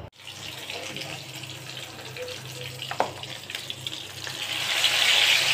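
Ghee and oil sizzling in a non-stick frying pan, growing much louder about four seconds in as pieces of marinated chicken are laid into the hot fat. A brief knock about three seconds in.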